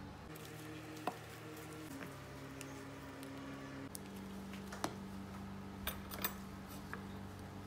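Soft background music of slow held notes, with a few light clicks and knocks of a plastic ice-cream scoop against glass dessert bowls and the plastic tub: once about a second in, once near five seconds and twice around six seconds.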